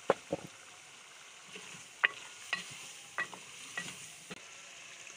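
Wooden spoon stirring chicken with freshly added tomatoes and green chillies in hot ghee in an aluminium pot: a sharp knock of the spoon against the pot every second or so, over a faint sizzle of frying.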